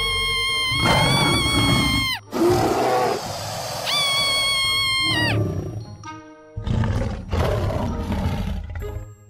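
Dinosaur-style roaring and growling alternating with a young girl's two long, high-pitched shrieks, one at the start and one about four seconds in, over background music.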